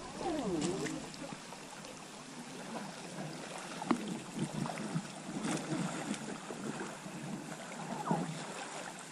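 Inflatable PVC boat being pulled over a shallow rocky riffle, its rubber hull squeaking and scraping on the stones a few times, with water rippling over the shallows.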